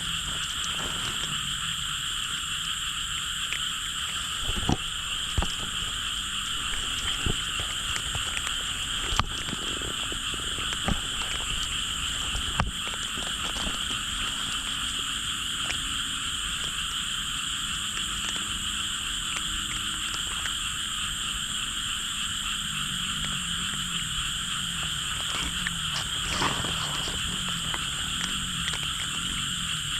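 Dense, unbroken chorus of many frogs calling together. A few sharp clicks stand out in the first half.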